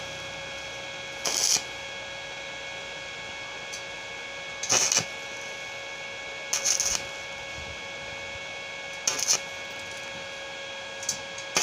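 Stick welder at 80 amps striking short arcs on a galvanized 1x1 steel tube joint: five brief crackling bursts about every two seconds. The short on-off bursts are the stitching method for thin tubing, used to keep the weld from burning a hole. A steady electrical hum runs underneath.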